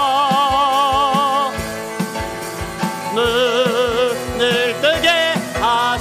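A worship team singing a Korean praise song with band backing. A voice holds a long note with wide vibrato, then more sung phrases with vibrato follow over a steady drum beat.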